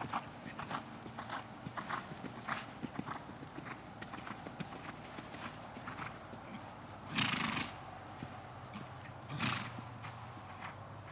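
Hoofbeats of a horse cantering on sand footing, a run of short dull beats. Two short, loud whooshing blasts stand out, about seven seconds in and again two seconds later.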